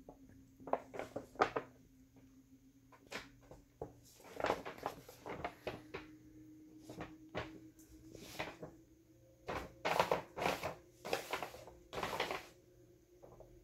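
Brown paper bags rustling and crinkling under a cat's paws in irregular bursts, busiest about four to five seconds in and again from about ten seconds on. A faint steady hum runs underneath.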